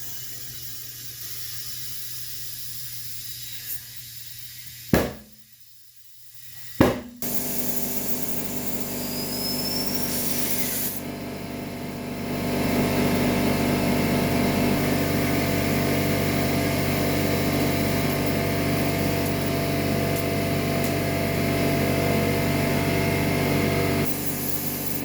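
Compressed air hissing into a tire through the valve stem with its core removed, then two sharp pops about two seconds apart as the tire beads seat on the rim. After the pops an air compressor motor runs steadily, louder from about halfway on.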